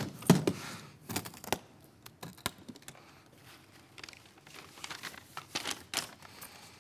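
Rustling and crinkling of something being rummaged through, with scattered irregular clicks and knocks, as a hidden object is dug out.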